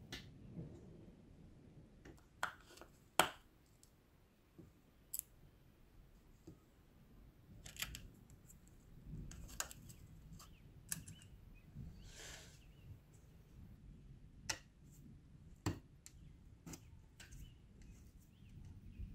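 Small screwdriver working the screws of a rusty metal toy Colt 1911 pistol as it is taken apart: faint scattered clicks and metal taps, with a short rasping scrape a little past the middle.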